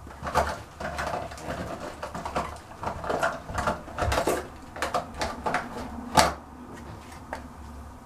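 A rapid series of clicks, knocks and rattles of small items being handled and rummaged through, with the sharpest knock about six seconds in.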